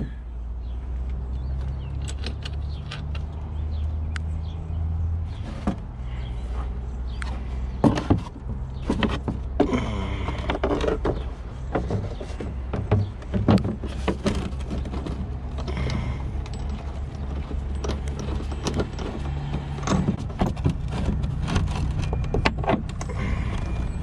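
Irregular clicks, knocks and rattles as the removed front-end trim and fasteners of a 2012 Freightliner Cascadia are handled and fitted back, heaviest about eight seconds in and again midway. Under them runs a steady low engine hum.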